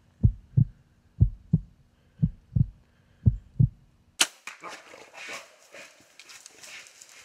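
Heartbeat sound effect: paired low lub-dub thumps about once a second. About four seconds in it cuts off sharply to rustling and crackling in forest undergrowth as something moves through the brush.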